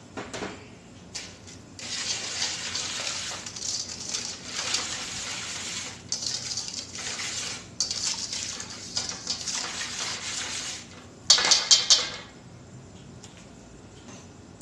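Wire balloon whisk stirring instant yeast into water in a stainless steel bowl, a steady scraping swish against the metal with short pauses. Near the end comes a quick run of about four loud metallic clanks as the whisk knocks against the bowl.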